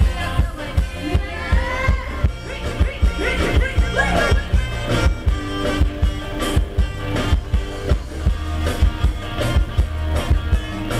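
Live band playing Thai ramwong dance music over a loud PA, a heavy bass drum keeping a steady beat under the melody.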